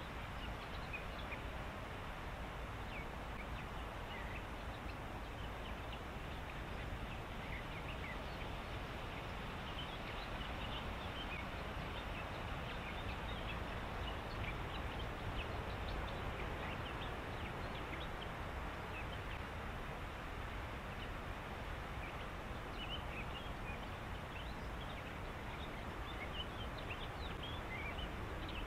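Reedbed ambience at dusk: a steady background hiss with many short, high chirps and calls from birds and other animals in the reeds, scattered throughout and thicker in places.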